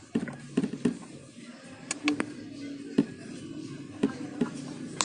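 Scattered sharp clicks and taps, from buttons and controls being worked on a mini audio mixer while the voice effect is changed, over a faint low steady hum.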